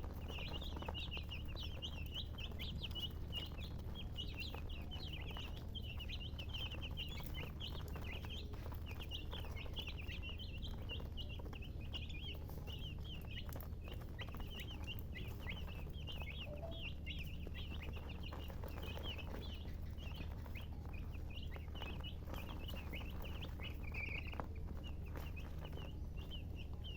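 Chickens chirping: many short, high chirps overlapping with no pause, over a steady low hum.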